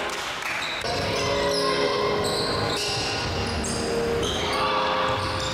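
Pickup basketball game on a hardwood gym court: many short sneaker squeaks and the thuds of the ball bouncing, echoing in the hall.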